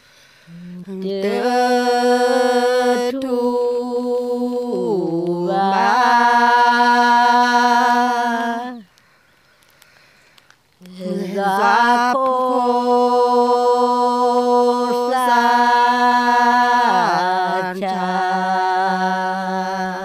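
A woman's unaccompanied voice chanting traditional Karen verse in two long drawn-out phrases with a short pause between. Each phrase is held on a steady note, dips briefly in pitch, then returns before ending.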